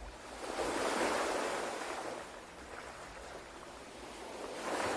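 Ocean waves washing in and receding: one wave swells and fades, and the next begins to build near the end.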